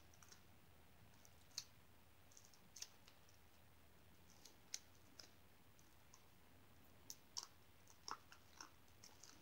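Faint, irregular sticky clicks and small squelches of slime being pushed by fingers into the neck of a rubber balloon to fill a stress ball, against near silence.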